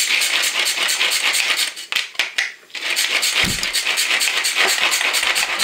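Hand-operated mini food chopper whirring and rattling as it is worked by hand, its blades mincing onion inside the small plastic bowl. It runs in two long spells with a short break about two seconds in.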